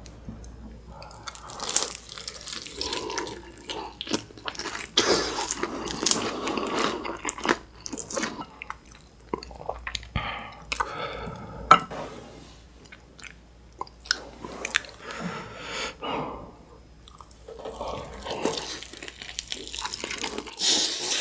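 Close-up eating sounds of one person biting into sauced fried chicken and slurping and chewing Jjapagetti black-bean instant noodles: many short smacking clicks and chewing noises.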